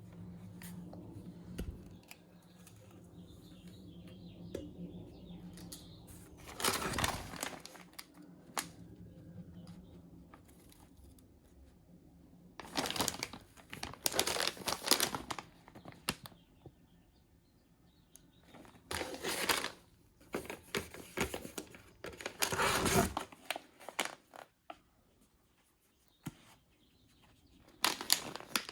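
Treat packaging being crinkled and torn in several separate bursts a few seconds apart, with the longest stretch a little under halfway through.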